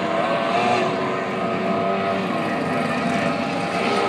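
Engines of several small racing boats running flat out together: a layered, high-pitched drone, with the pitches of the different engines drifting down and back up.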